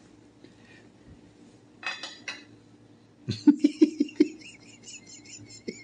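Forks clinking and scraping on plates during a meal, with a quick run of about six sharp knocks a little past three seconds in, followed by a thin high-pitched scraping.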